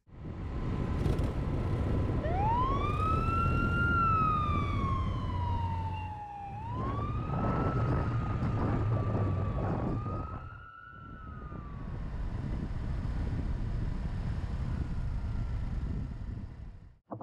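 An emergency-vehicle siren wailing: its pitch rises, sinks slowly, then rises again a few times before it fades out about twelve seconds in. Under it runs the low rumble and wind noise of a moving scooter, which drops out briefly a couple of times.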